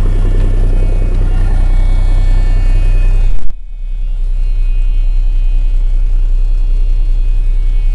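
Cummins diesel of a 1989 Freightliner truck idling, heard from the cab with a steady low drone. About three and a half seconds in the cab door shuts, and from then on the engine sounds muffled and duller.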